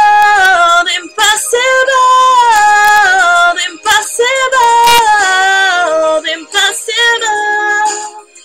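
A woman singing long, drawn-out wavering notes that step down in pitch, in three phrases, dying away near the end.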